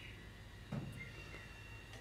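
A single soft thump about three-quarters of a second in, over a quiet background with a faint steady high whine.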